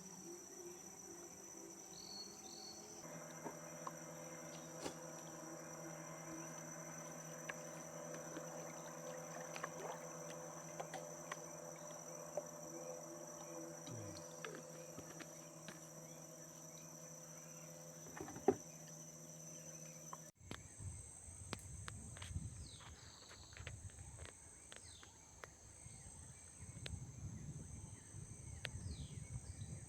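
Insects trilling steadily and high-pitched, with a faint low steady hum under them. About two-thirds of the way through the sound changes abruptly. After that the hum gives way to a low rumble and one insect trill pulses on and off.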